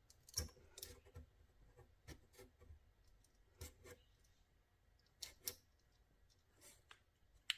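Faint, scattered scrapes and ticks of a plastic razor-blade scraper working a sticker off a laminate surface, a few short strokes several seconds apart.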